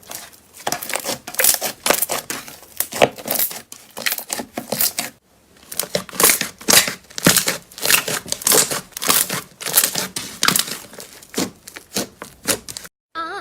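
Slime being squeezed and pressed by hand, giving a dense run of crackles and pops with a short lull about five seconds in.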